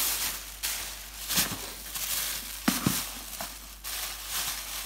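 Thin white plastic bag crinkling and rustling as a child's hands pull and twist at it to get a present out, with a few sharper crackles.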